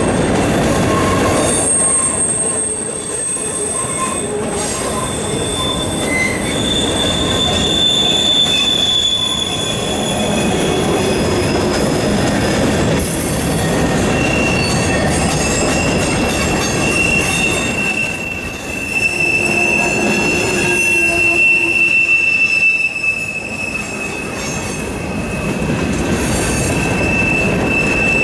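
Freight train of covered hopper cars rolling past close by: a steady rumble of steel wheels on the rails, with high-pitched wheel squeal. One squeal tone comes in about halfway through and holds almost to the end.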